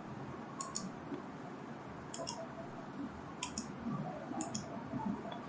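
Computer mouse buttons clicking: four quick pairs of clicks, about a second apart.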